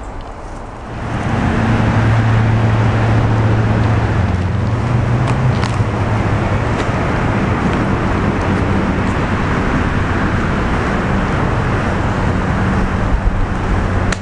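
Steady rumble of road traffic with a low engine drone, starting about a second in.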